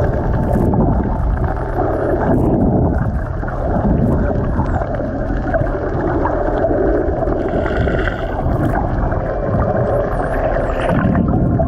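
Underwater recording among a pod of dolphins: a steady rush of water noise on the microphone, with the dolphins' high gliding whistles and clicks over it.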